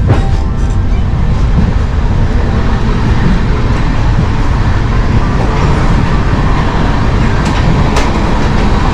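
Kalinga Utkal Express train running, a loud steady rumble and rattle of the wheels on the track heard from inside the carriages. A few sharp knocks come through near the start and again near the end.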